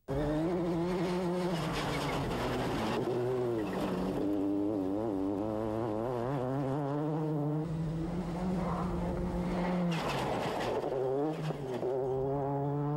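Ford Focus WRC rally car's turbocharged four-cylinder engine at high revs, its pitch rising and falling quickly as the throttle is worked through a loose-surface slide, with tyre and gravel noise. Two loud rushes of noise come about three and ten seconds in.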